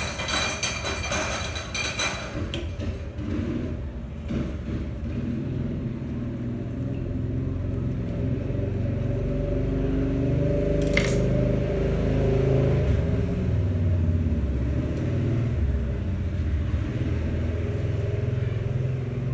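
Dishes and utensils clinking for a couple of seconds, then a steady low rumble that swells and fades, with one sharp click about eleven seconds in.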